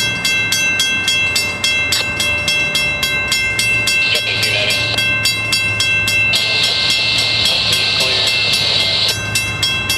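Mechanical railroad crossing bells ringing in rapid, even strokes, about four to five a second, over the low steady running of a CSX GP40-2 diesel locomotive approaching the crossing.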